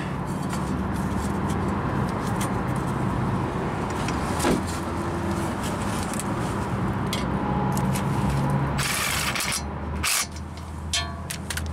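Steady low hum of an idling vehicle engine, with scattered clicks and a short scrape of hand tools at a front wheel hub as the ABS wheel speed sensor is seated and its mounting bolt is turned with a socket on an extension.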